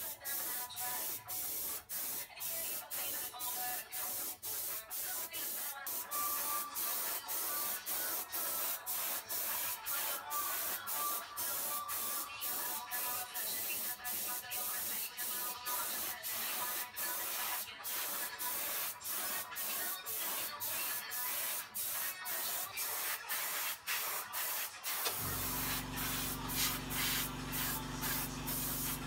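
Airbrush spraying yellow paint onto a bicycle fork: a steady air-and-paint hiss, broken by short gaps about twice a second as the trigger is let off and pressed again. A low steady hum joins near the end.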